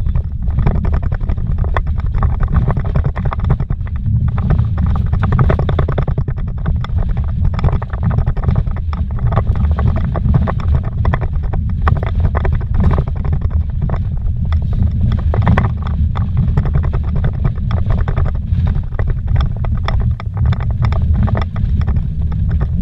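Car driving fast on a rocky dirt road, heard from inside the cabin: a steady low rumble of engine and tyres, with constant knocks and rattles as it jolts over stones and ruts.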